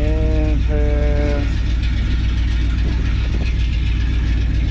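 Vehicle engine idling steadily, a low constant rumble. In the first second and a half there are two short pitched tones of about half a second each.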